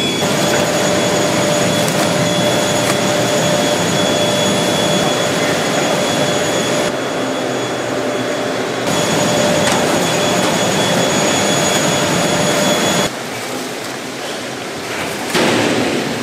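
Steady factory machinery noise: an even rushing hiss with a steady whine through it. It drops abruptly quieter near the end, with a brief louder swell just before the end.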